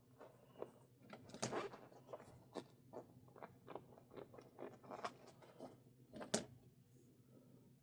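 Irregular crackles and clicks of small rubber and plastic RC tire parts being handled up close, with a sharper click about 6 seconds in.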